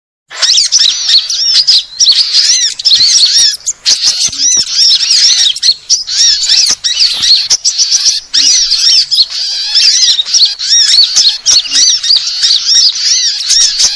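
Small-bird lure call recording (suara pikat): a dense, agitated chorus of small songbirds, many short arched chirps overlapping rapidly and almost without pause.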